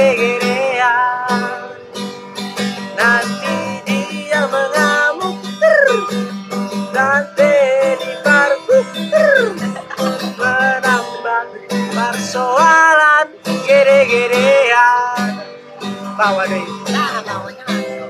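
A man singing a song to his own strummed acoustic guitar.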